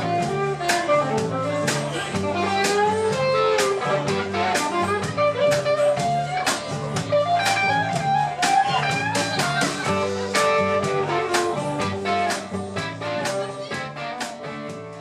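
Live band playing a song: a guitar melody over bass and a steady drum beat, fading out near the end.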